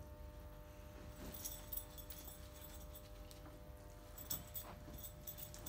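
Faint rustling of a white fabric media wall print as it is gathered up and folded, soft crackles coming and going from about a second in, over a steady low hum.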